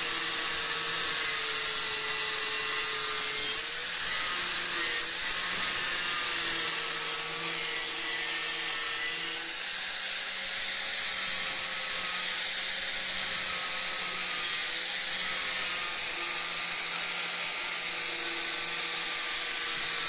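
Angle grinder running under load, its disc grinding the steel of a chainsaw guide bar. The motor gives a steady whine over a hissing rasp of abrasive on steel, and the pitch dips a little and recovers as pressure on the disc changes.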